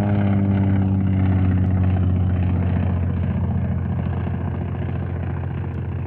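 Light propeller aircraft's piston engine droning steadily at a low pitch, turning rougher and slowly fading from about halfway through.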